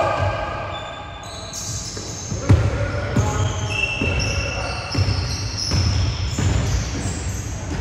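A basketball bouncing several times on a hardwood court, at uneven spacing, with the loudest bounce about two and a half seconds in. Sneakers squeak briefly on the floor again and again throughout.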